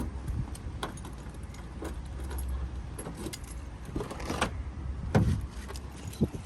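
Scattered clicks and knocks with a few thumps, the loudest about five seconds in, over a low rumble: movement and handling noise around a car.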